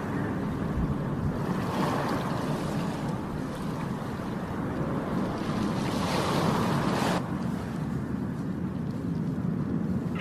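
Sea waves washing in, a steady rushing noise that swells about two seconds in and again around six seconds.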